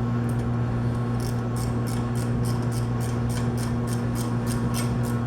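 Socket ratchet clicking in a steady run of about three clicks a second, starting about a second in, as bolts on the pump volute are tightened in a star pattern. A steady low electrical hum runs underneath.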